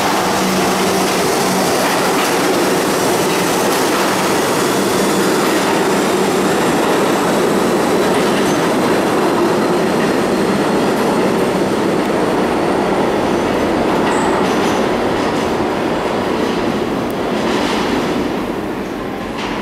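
R32 subway train pulling out of the station, its wheels rumbling and clattering over the rails. The sound eases off near the end as the train goes into the tunnel.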